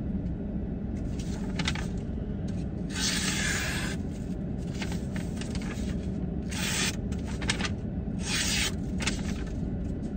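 A folding knife's thin hollow-ground blade slicing through a sheet of paper receipt several times, a paper-cutting test of its edge. Each cut is a short hissing rasp, the longest about a second long around three seconds in. A steady low hum runs underneath.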